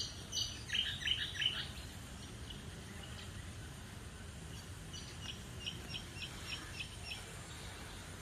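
Bird chirping outdoors: a quick run of loud chirps in the first second and a half, then a row of about eight short, evenly spaced chirps a few seconds later, over steady low background noise.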